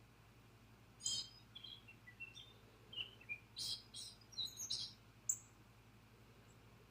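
A bird chirping: a quick series of short high notes, some gliding down in pitch, starting about a second in and stopping after about four seconds.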